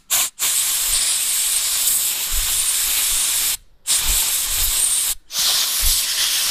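Compressed-air blow gun blasting through a Briggs & Stratton lawnmower carburettor to clear it after a carb-cleaner soak: a loud, steady hiss that stops briefly a few times as the trigger is let off.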